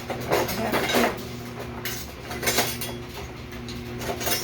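Kitchen utensils clattering and clinking in several short separate bursts as they are rummaged through in search of a spatula.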